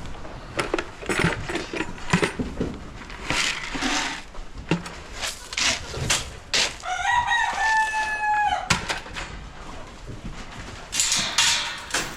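A rooster crowing once, a long held call about seven seconds in, among short scattered calls and knocks from poultry.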